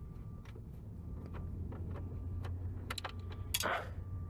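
Plastic steering column trim being worked loose by hand, with scattered small clicks and ticks and one louder scraping rattle about three and a half seconds in, over a steady low hum.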